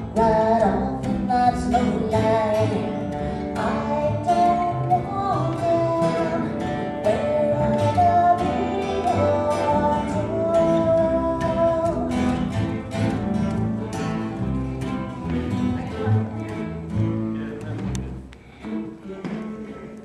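A woman singing a song to acoustic string-band backing of guitar, mandolin and bass, with the strings plucked and strummed; the music tails off near the end.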